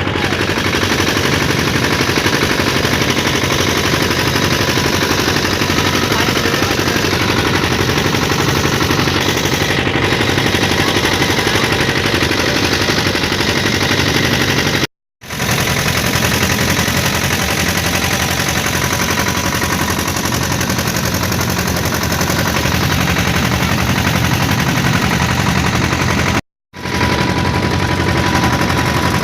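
Motorboat engine running steadily at close range with a fast, even chugging. The sound cuts out briefly twice.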